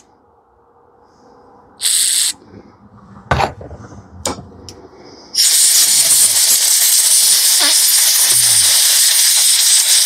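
Compressed air from a blow-gun nozzle hissing loudly and steadily through the jets of a small plastic carburetor part, starting about five seconds in, to blow them clear after spray cleaning. Before it there is a short hiss and a few clicks as the part and the tools are handled.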